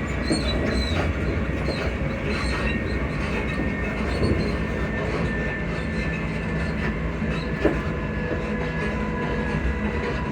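Class 334 electric multiple unit running at speed, heard from inside the carriage: a steady low rumble of wheels on rail, with thin squeaking tones from the suspension held over it. A single sharp knock about three-quarters of the way through.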